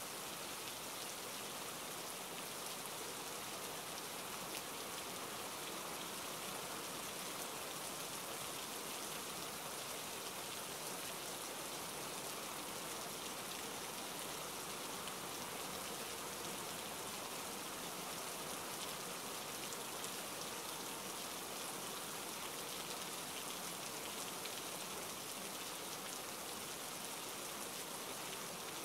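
Steady, even rain falling: a constant hiss of many drops with no single splash standing out.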